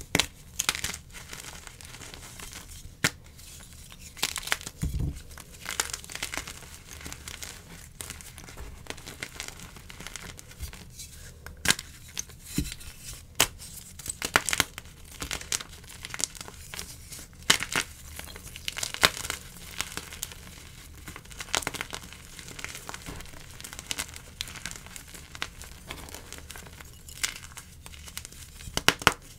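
Blocks of semi-dyed gym chalk being snapped and crumbled by hand into a pile of chalk powder: dry, crunchy crackling with sharp snaps scattered every second or two as pieces break.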